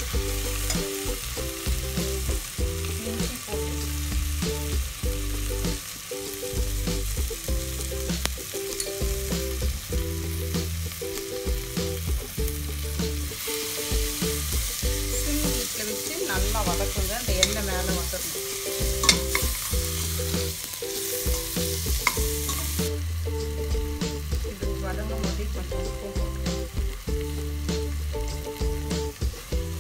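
Chopped onion, tomato and coriander stems sizzling in hot oil in a stainless steel pot, stirred with a metal slotted spoon that clicks and scrapes against the pot again and again. The masala is being sautéed down until soft.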